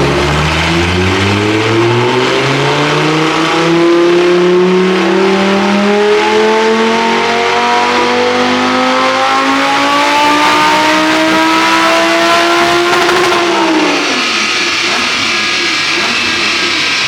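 Audi R8's 5.2-litre V10 with a SuperSprint exhaust on a full-throttle dyno pull: the engine note rises steadily for about thirteen seconds. The revs then drop sharply as the throttle closes and the engine decelerates.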